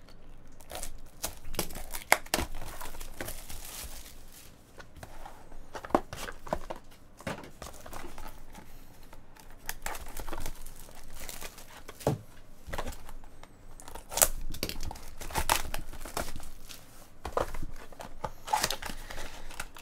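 Topps Triple Threads trading-card box being unwrapped and opened by hand: wrapper crinkling and tearing, with the small cardboard inner boxes sliding and tapping on the table. Irregular sharp snaps, the loudest about two seconds in and about fourteen seconds in.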